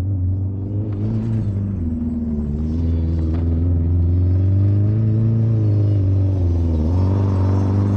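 Rally car engine revving up and down as the car circles the dirt track, its pitch rising and falling repeatedly over a steady low rumble, growing louder as the car comes nearer in the second half.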